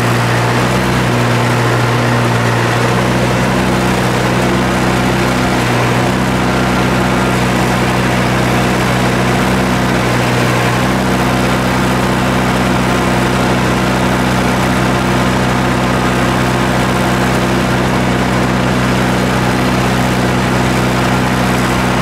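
Heavy engine running steadily at a fixed speed. Its pitch shifts slightly about three seconds in and again about eleven seconds in.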